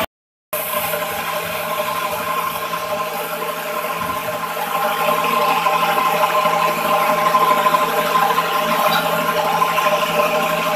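NutriBullet personal blender motor running steadily as it blends a smoothie in its cup: a constant, unwavering whine.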